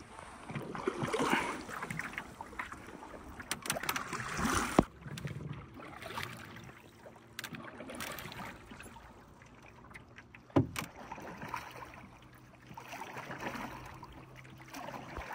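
Canoe paddle strokes pulling through calm lake water, a swish and splash with each stroke, every few seconds. Two sharp knocks stand out, one about five seconds in and one just past ten seconds.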